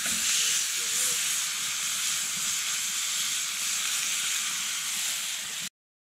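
Steak sizzling in a cast-iron skillet over a campfire, a steady hiss that cuts off abruptly near the end.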